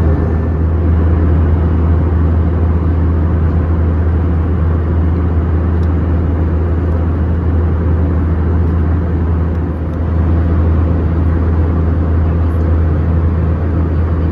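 Steady in-flight cabin noise of an Airbus A319-100 at cruise: a loud, unchanging low drone of engines and airflow with a strong deep hum underneath.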